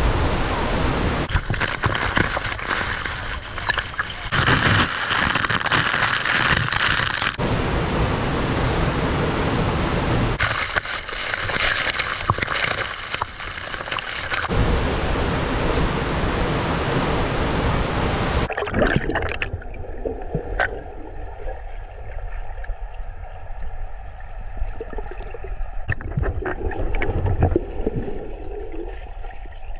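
Ozone Falls waterfall rushing water, a steady loud hiss-like roar of falling and churning water. About eighteen seconds in the sound turns abruptly duller and quieter, with scattered clicks.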